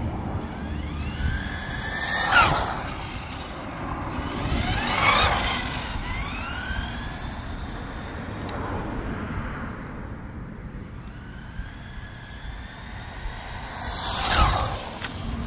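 1/10-scale RC car's 550 brushed motor and gears whining as the car speeds past three times: about two seconds in, about five seconds in, and near the end. On each pass the whine rises in pitch and then drops away.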